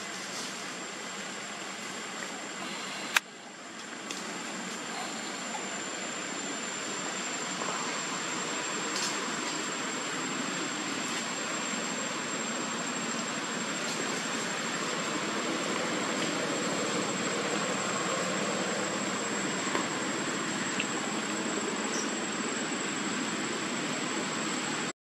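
Steady outdoor background noise: an even hiss with a thin, steady high-pitched whine over it, and one sharp click about three seconds in.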